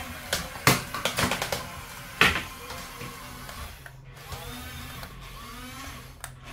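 Small electric motors of a radio-controlled toy excavator whining, rising and falling in pitch as it drives on its tracks and swings its arm. A few sharp knocks come in the first two and a half seconds.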